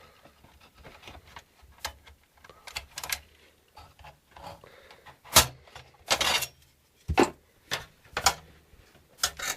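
Irregular clicks, knocks and rattles of hard plastic and metal parts of an Xbox 360 being handled as the console is taken apart, with the loudest knock about five seconds in and a short scraping rattle just after.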